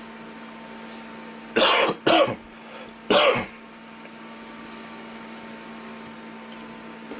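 A person coughs three short times, starting about a second and a half in, over a steady low electrical hum.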